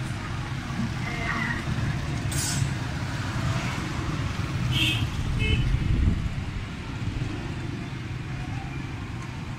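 Road traffic noise: a steady low rumble of passing vehicles, with short hissing sounds about two and a half and five seconds in.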